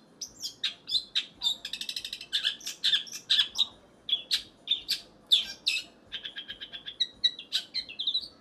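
Long-tailed shrike (cendet) singing a fast, varied string of short chirps and scratchy notes, with a rapid trill about two seconds in and a quick run of repeated notes about six seconds in.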